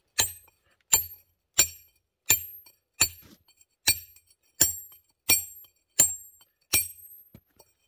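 Steady blows of a 3.5-pound walling hammer on a 3-inch fire-sharpened Riley nicker, about three strikes every two seconds, each a sharp metallic chink with a brief ring. The nicker is being worked along the bed of a reclaimed curb stone to split it.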